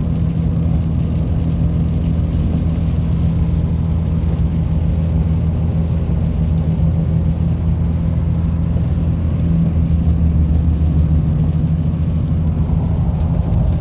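Car on the road, heard from inside the cabin: a steady low drone of engine and tyre noise.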